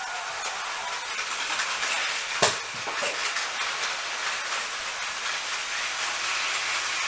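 Battery-powered Plarail toy trains running on plastic track: the steady whirring rattle of their small motors and gears, with light clicks as the wheels cross the track joints and one sharper click about two and a half seconds in.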